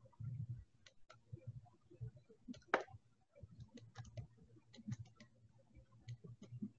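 Faint, irregular clicking of a computer mouse as it is clicked and dragged to orbit the view, with soft low thumps between the clicks.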